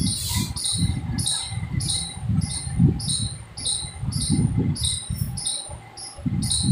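Marker pen writing on a whiteboard: irregular low rubs and knocks of the strokes against the board. Behind it, a high chirp repeats evenly about two to three times a second.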